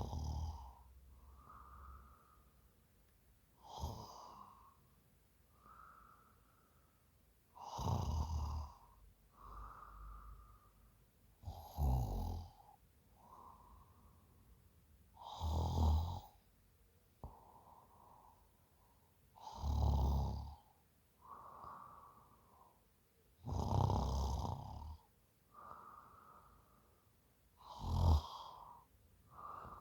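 A woman asleep after a few drinks snoring steadily. A loud snore comes about every four seconds, eight in all, with a softer breath out between each.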